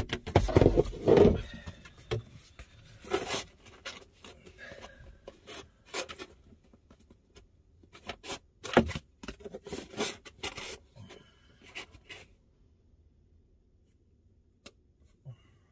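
Close hand-work noises: irregular sharp clicks, rustles and scrapes of materials being handled, stopping about twelve seconds in, after which only two faint ticks remain.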